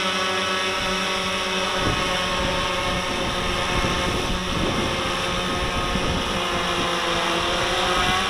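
RC Timer S1100 octocopter's eight electric motors and propellers whirring steadily in a hover, several close-spaced tones sounding together. From about two seconds in, wind rumbles on the microphone under the motor tones.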